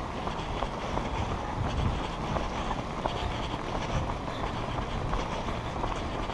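Runners' footsteps on pavement, a steady stride of about two to three footfalls a second over a steady low rumble, picked up by a headband-mounted camera.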